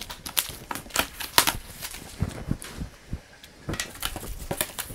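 Cardboard shipping box being handled while its packing tape is pulled open: a string of crackles and rustles with a few dull knocks on the box.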